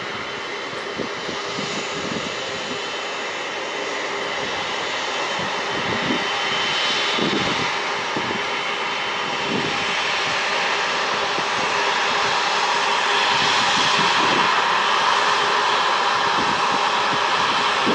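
Airbus A330-200 jet engines, Rolls-Royce Trent 700 turbofans, running at taxi power as the airliner rolls past, a steady jet whine and rush that grows louder as it nears.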